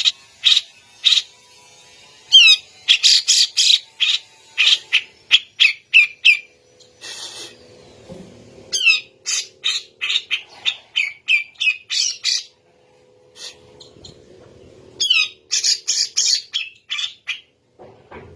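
Grey-cheeked bulbul (cucak jenggot) singing: rapid runs of loud, sharp, chattering notes, some sweeping in pitch, with a short pause partway through.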